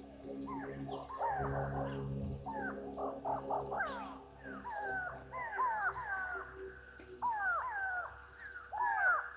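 Several wild animals calling in short, falling whistled notes, many overlapping in quick runs, over a steady high insect drone.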